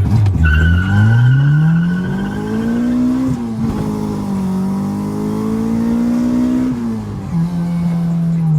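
Honda Del Sol engine pulling hard under acceleration: the note climbs steeply, drops at a gear change about three seconds in, climbs again more slowly, then falls back as the throttle eases near the end. A thin high whine sounds over the first three seconds.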